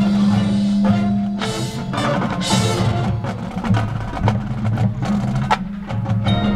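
High school marching band playing its field show: a held low brass note gives way to a percussion-heavy passage of mallet keyboards and drums, with two cymbal crashes in the first three seconds.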